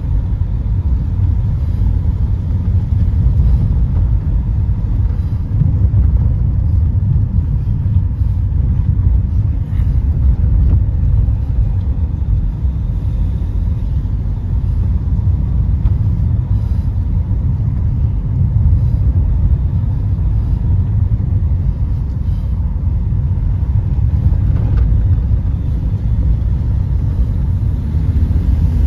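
Car cabin noise while driving: a steady low rumble of the engine and tyres on a paved road.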